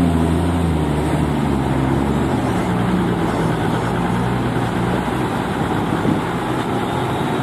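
Diesel engine of a loaded lorry running at low speed as it crawls through the mud ruts past close by; its low engine note eases off a little over two seconds in, leaving a steady rumble.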